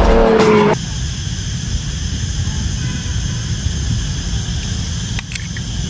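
A film soundtrack with a held musical tone cuts off abruptly under a second in. It gives way to steady outdoor background noise, a low rumble with hiss, with a few faint clicks about five seconds in.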